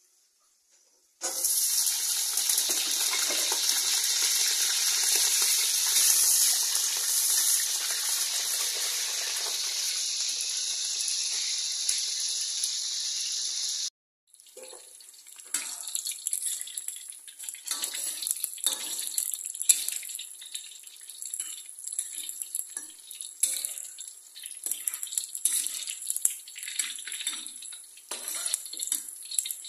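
Potato and green eggplant pieces deep-frying in hot oil in a wok: a loud, steady sizzle starts suddenly about a second in. After a break near the middle, the frying goes on as uneven crackling and spitting while a spatula turns the pieces.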